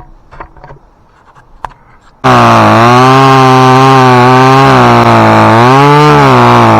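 About two seconds in, a chainsaw cuts in suddenly at full throttle and runs loud, its pitch sagging and recovering several times as it cuts into spruce wood.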